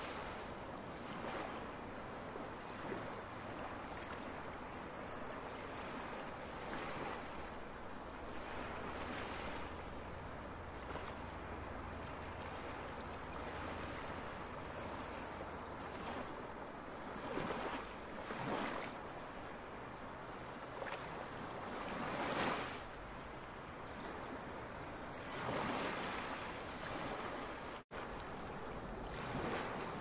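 Ocean waves washing onto a shore: a continuous surf noise with louder surges every few seconds as waves break. A split-second gap near the end.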